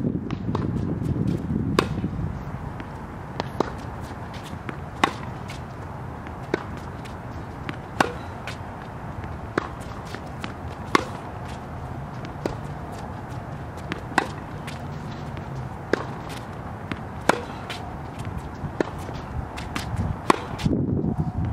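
Tennis ball struck by a racket in groundstroke rallying on a hard court: a sharp pock roughly every one and a half seconds, some louder than others.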